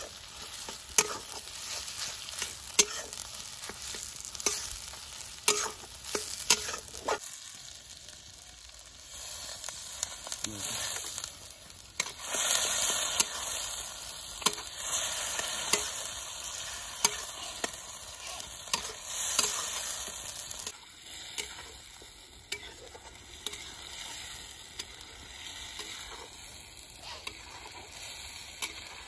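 Metal spatula scraping and knocking against a black wok as chopped snail meat is stir-fried, over the sizzle of the frying. Quick scraping strokes come close together for the first several seconds; after that the sizzle is steadier, with only occasional strokes.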